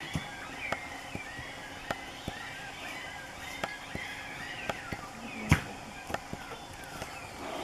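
Night-time forest chorus of many short, arching chirps repeating several times a second, with scattered clicks and one sharp knock about five and a half seconds in.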